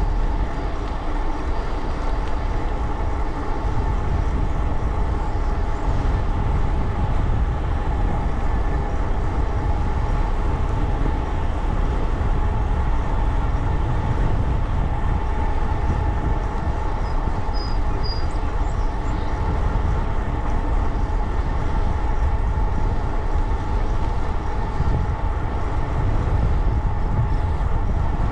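Wind rushing over the microphone and tyres rumbling on the trail surface during a fast bicycle ride, a steady noise with a thin whine running under it.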